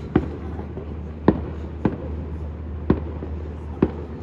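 Fireworks going off: five sharp bangs at uneven intervals, roughly a second apart, over a steady low hum.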